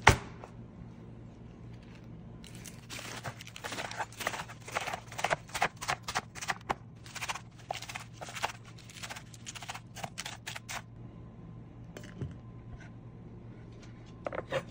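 A knife chopping through romaine lettuce on a bamboo cutting board: a run of crisp cuts, each stroke knocking the wood, about three a second, that stops about eleven seconds in. At the very start the lettuce drops onto the board with a sharp thump.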